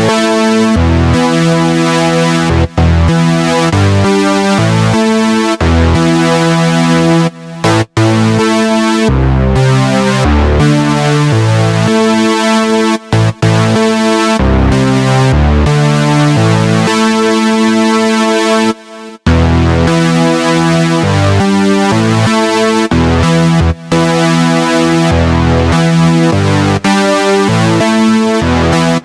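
Synthesizer keyboard music: layered sustained chords changing every second or so, with brief breaks about eight and nineteen seconds in.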